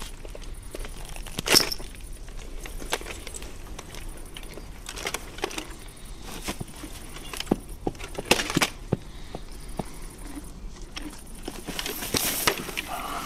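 Quiet film soundtrack with scattered faint clicks, knocks and rustles, the sharpest about a second and a half in.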